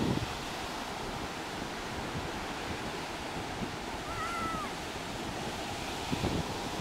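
Ocean surf breaking on a beach, a steady rushing wash, with wind buffeting the microphone. About four seconds in, a brief high-pitched call sounds.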